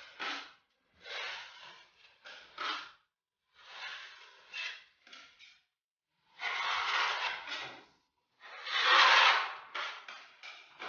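Wide steel plastering blade drawn across a wall, spreading filler compound in a series of scraping strokes, each about a second long, the loudest about nine seconds in. Between strokes come short sharp scrapes of the blades being loaded and wiped against each other.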